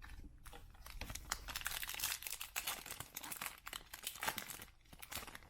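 Foil wrapper of a baseball card pack crinkling and tearing as it is ripped open by hand.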